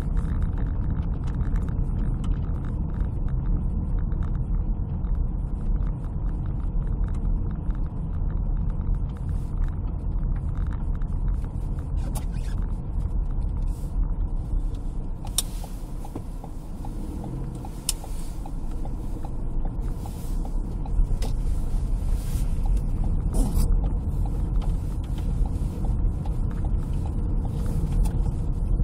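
Steady low rumble of a car driving on snow-covered streets, heard from inside the cabin, with a few sharp clicks and knocks about halfway through.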